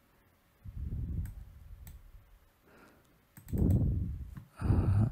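A few sharp computer-mouse clicks, with a man's low muttering in between that grows louder near the end.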